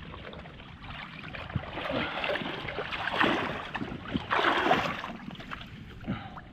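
River water rushing and lapping, swelling and easing in irregular surges.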